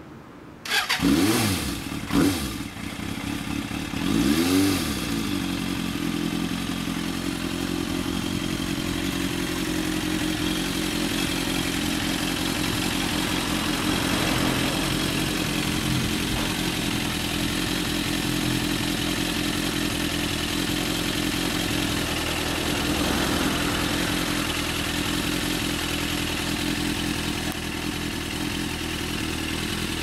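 Suzuki GSX400S Katana's inline-four engine, breathing through a WR'S aftermarket silencer, firing up and blipped three times in its first few seconds, then idling steadily.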